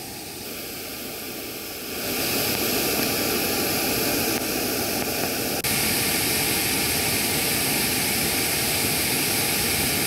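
Floodwater rushing steadily over a dam's overflow weir and down a churning river channel, growing louder about two seconds in.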